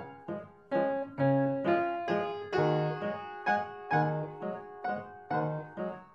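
Background music: a keyboard melody of short, separate notes, each starting sharply and dying away, about two a second.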